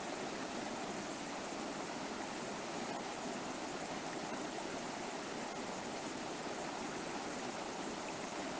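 River water flowing steadily over rocks: a constant rushing with no breaks.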